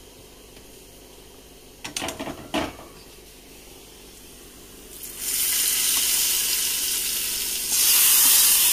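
Hot coconut-oil tempering of fried shallots, dried red chillies and curry leaves poured into a bowl of dal curry, sizzling loudly from about five seconds in and louder near the end. Before that, a few short knocks about two seconds in.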